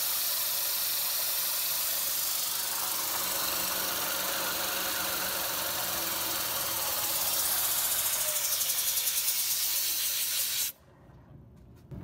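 Cincinnati vertical milling machine, driven by a 3-phase 5 HP spindle motor, running with a 1-inch four-flute carbide end mill on a steel plate: a steady, hissing machine noise. The noise takes on a fast flutter in its last few seconds and cuts off abruptly near the end.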